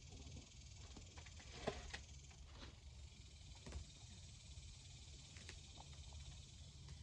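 Faint rustling and a few light knocks of hands working through garden soil and grass roots, over a steady high hiss.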